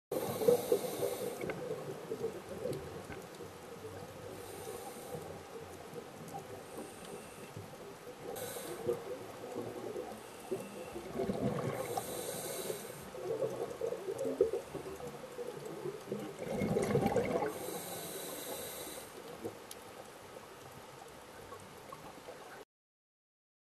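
Scuba diver's breathing through a regulator, heard underwater: a few breaths several seconds apart, each a bubbling rush of exhaled air followed by the hiss of an inhalation, over a steady watery hiss.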